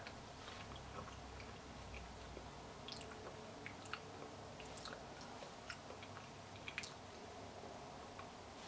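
Faint chewing of a mouthful of soft vegan feta-style cheese, with scattered small mouth clicks over low room tone.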